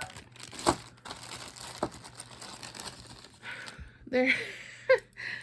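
Plastic bags crinkling, with two sharp knocks about a second apart from buckeyes dropping onto a metal roof. Short vocal sounds follow near the end.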